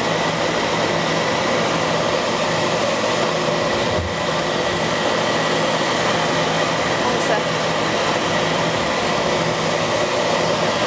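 Steady machinery drone in a racing yacht's cabin: the diesel engine running to charge the batteries while the water maker runs, with a constant low hum and a thin steady high tone.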